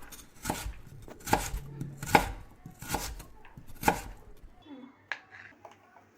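Knife chopping on a cutting board with about five separate, evenly spaced strokes, roughly one a second. Near the end the strokes stop and only a few faint light clicks remain.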